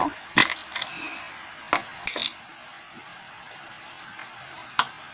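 Glossy slime being squeezed and poked by hand, giving a handful of sharp clicking pops at irregular intervals.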